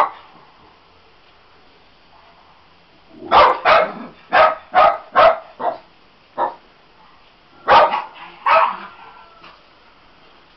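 Small dachshund barking to be let in at the door: short, sharp barks in bursts, one right at the start, a quick run of about seven a few seconds in, and a few more near the end.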